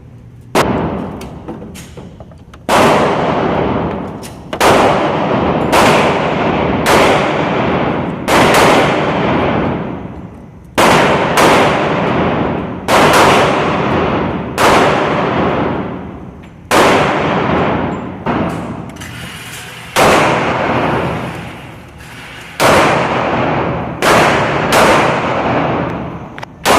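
Gunshots at a shooting range: a string of single shots at irregular intervals, roughly one to two seconds apart, each followed by a long ringing decay.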